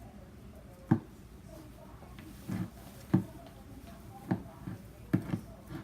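Homemade slime being stretched and worked by hand, giving about six short, irregular squelching pops.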